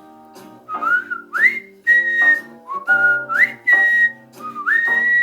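A person whistling a melody, sliding up into each note and holding the last one long, over chordal accompaniment.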